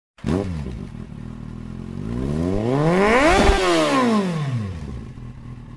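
Motorcycle engine revved: after a short falling note at the start, its pitch climbs steadily to a peak midway and then falls back just as steadily, settling to a steady lower pitch near the end.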